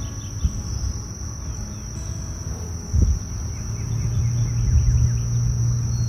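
A steady high-pitched insect trill, with low rumble and knocks from a wooden hive frame being handled and one thump about three seconds in. A low steady hum comes in about halfway through.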